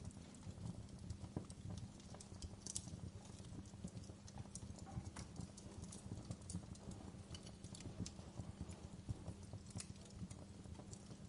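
Wood fire crackling in a fireplace: many small irregular pops and snaps over a low, steady rumble of burning.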